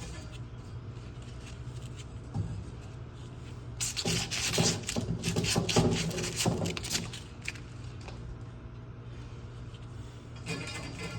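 Copper pipe being scrubbed clean with an abrasive, a quick run of rubbing strokes from about four seconds in until about seven and a half, over soft background music.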